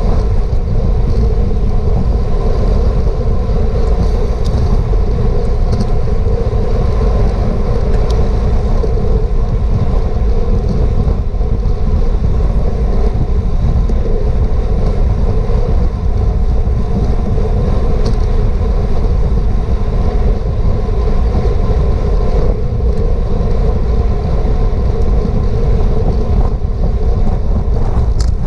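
Steady, loud wind rushing over the microphone of a camera on a racing bicycle at speed, with the hum of the bike underneath and a couple of faint clicks.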